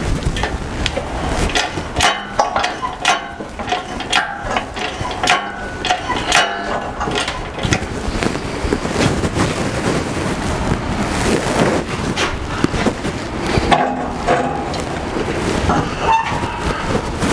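Steel clanking, knocking and scraping as a heavy steel compressor frame is shoved and shifted into position by hand, with short metal squeals: many sharp knocks throughout, the squeals coming about two seconds in and again near the end.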